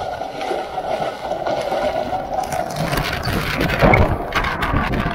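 Small waterfall pouring down a rock face, a steady rush of falling water. From about two and a half seconds in, the water splashes straight onto the camera as it goes under the falling stream, adding a rough, crackling spatter.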